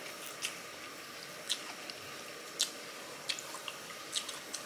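A person chewing food with wet mouth smacks and small clicks, roughly one a second, over a faint steady background.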